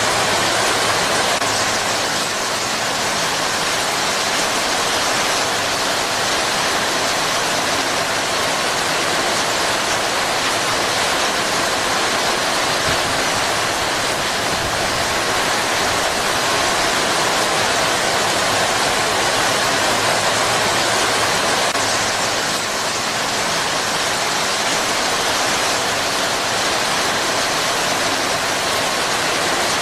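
Heavy rain pouring steadily onto palm fronds and foliage, a dense, even hiss of falling water.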